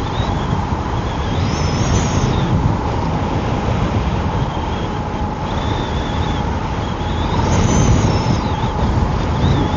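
Wind buffeting the microphone while riding an Emove Roadster electric scooter, with a thin motor whine whose pitch rises and falls as the speed changes.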